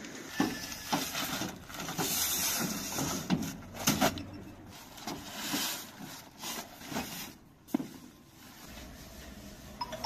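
Irregular knocks and clinks of things being handled and set down, with a stretch of rustling near the start.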